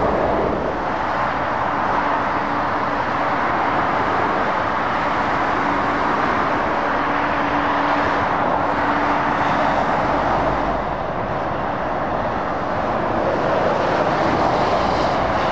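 Motorway traffic passing below: a continuous rush of tyre and engine noise from lorries and cars, with a faint steady hum through the middle stretch.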